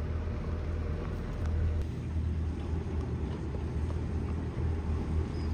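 Large outboard motors idling as a center-console boat passes at slow speed, a steady low burble.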